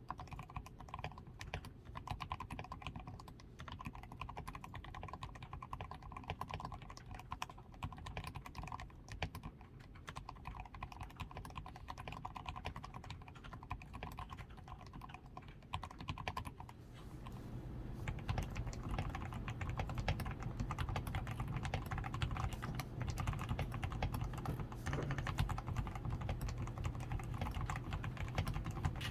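Continuous fast typing on a DAREU A87 Pro mechanical keyboard, fully lubricated with Krytox 105, with a tape-modded PCB, foam-padded switches, lubed stabilisers and XDA keycaps. The keystrokes get louder and deeper from a little past halfway.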